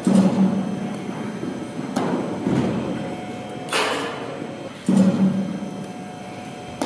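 Baseball infield practice in a large indoor hall: sharp knocks of baseballs being hit and caught, three in all, each dying away with an echo, with a short hissing rush between the second and third.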